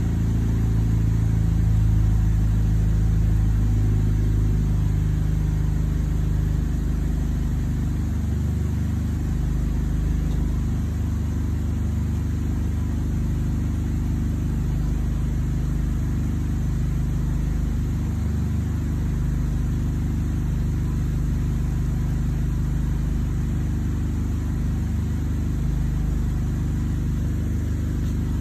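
2010 Chevrolet Malibu's engine running steadily with a low hum.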